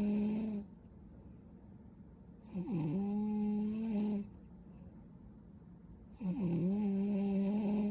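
A young woman snoring in her sleep: slow, regular snores, each a steady, humming pitch lasting under two seconds that dips briefly as it starts. One snore is already sounding and ends about half a second in, the next runs from about two and a half to four seconds, and a third begins about six seconds in.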